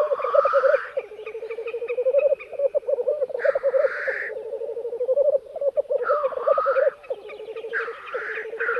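Male black grouse displaying at a lek: a continuous low bubbling, cooing chorus, with loud hissing 'sneeze' calls cutting in every two seconds or so.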